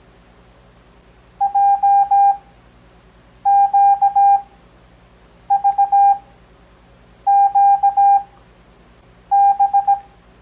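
Morse code (CW) practice tone: a single steady mid-pitched beep keyed into dots and dashes, five characters sent about two seconds apart. Farnsworth timing, with characters sent at 17 words per minute and long gaps between them for 6 words per minute overall.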